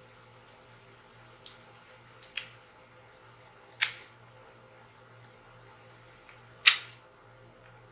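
Four sharp clicks and knocks of wooden clamp parts and bolt hardware being handled and fitted together, the loudest about two-thirds of the way in, over a faint steady low hum.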